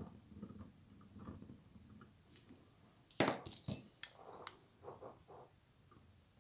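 Faint handling noises at a fly-tying bench: soft rustling, then a quick cluster of sharp little clicks and knocks about three seconds in, and a few softer rustles after.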